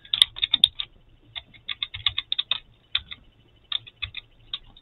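Typing on a computer keyboard: quick, irregular runs of key clicks with short pauses between them.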